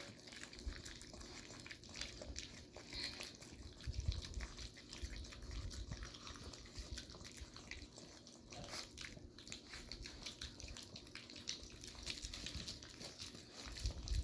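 Several young puppies lapping and chewing wet, mushy puppy food from a bowl: a steady scatter of soft, wet little clicks.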